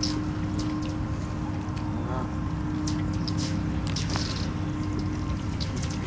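Flock of Canada geese at a pond's edge, with one short, soft goose call about two seconds in and scattered small high clicks, over a steady low rumble and hum.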